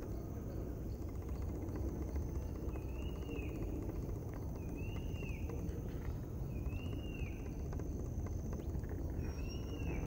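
Forest ambience: a bird repeats one short rising-then-falling call about every two seconds, four times, over the steady high drone of crickets, with a low rumble underneath.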